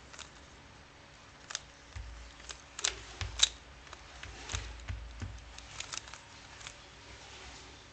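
A plastic 3x3 Rubik's cube being turned by hand: irregular clicks as its layers are twisted, with a few dull knocks of handling in the middle.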